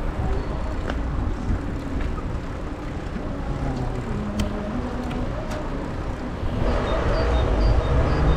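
Road traffic going by on the main road beside the path, over a steady low rumble of wind and rolling noise; the traffic grows louder about two-thirds of the way in.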